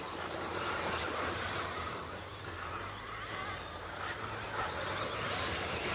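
Radio-controlled stadium trucks racing round a dirt track, heard at a distance as a faint wavering motor whine over a steady noisy background.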